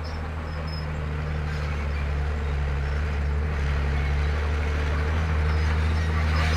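Komatsu D31P crawler bulldozer's diesel engine running steadily at work, with a low drone that grows a little louder in the second half.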